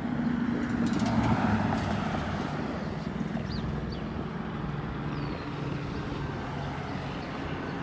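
Police helicopter circling low overhead: a steady drone of rotor and engine that swells slightly about a second in.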